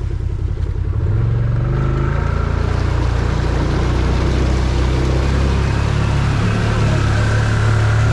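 Motor vehicle engine running steadily under load, its pitch rising about a second or two in as it speeds up.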